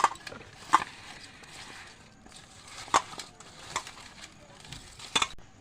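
About five sharp clinks and knocks, spread out, from kitchen utensils and containers being handled while spice pastes are added to a marinade.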